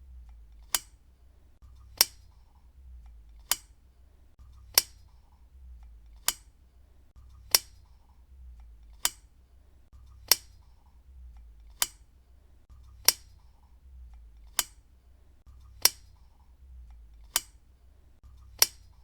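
Desk lamp switch clicked on and off again and again: a sharp single click about every one and a half seconds.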